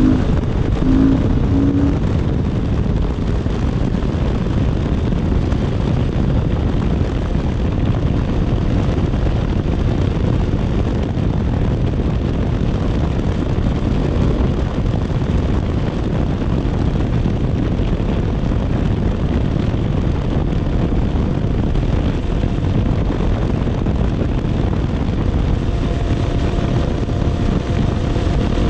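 Dirt bike engine running steadily at cruising speed on pavement, mixed with wind rush, with no shifts or big changes in speed; faint steady engine tones come through near the end.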